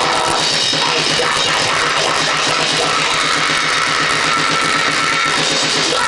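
Loud drum-and-noise band playing: a drum kit beaten fast and steadily under a dense wall of distorted noise.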